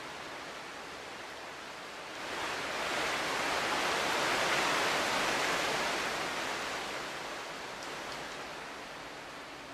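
A steady outdoor rushing hiss that swells about two seconds in, peaks around the middle and slowly fades away again.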